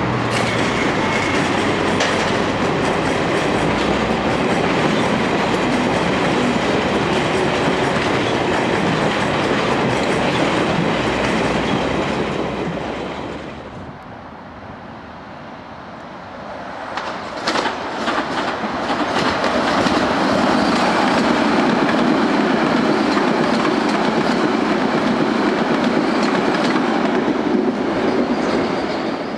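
London Underground Metropolitan line trains running on the track. One train's noise fades out about halfway through. A few sharp clicks follow, then a Metropolitan S stock train passes, with steady wheel-on-rail clatter that fades near the end.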